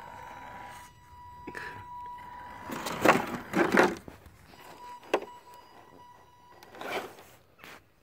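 Axial Deadbolt 1/10 scale RC rock crawler working over rock: a steady thin high whine for the first couple of seconds, then two loud scraping, clattering bursts about three seconds in as it drops into the gully. Single sharp clicks follow about five and seven seconds in.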